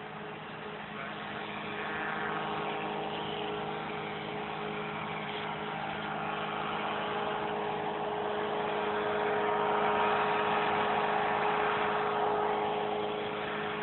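Small aircraft engine droning steadily in the distance. It grows louder over the first ten seconds, then eases a little.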